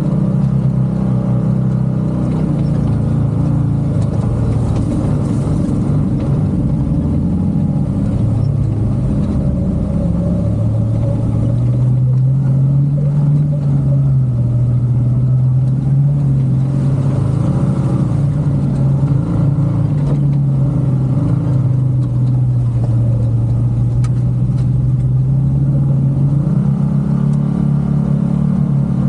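A motor vehicle's engine running steadily, its low drone wavering a little up and down in pitch as the revs change.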